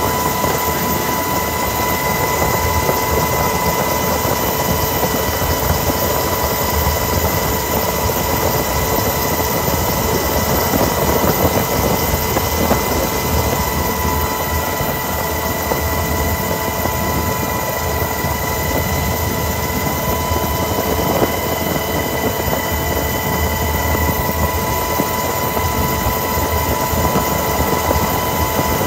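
Helicopter cabin noise in flight: a steady drone of engine and rotor, with high whining tones held throughout.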